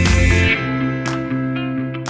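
Instrumental background music; the deep bass drops out about half a second in.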